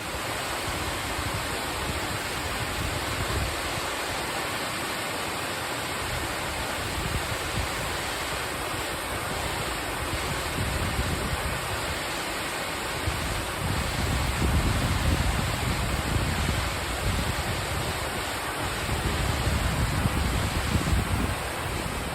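Steady rushing roar of a cascade waterfall, with gusts of wind buffeting the microphone in the second half.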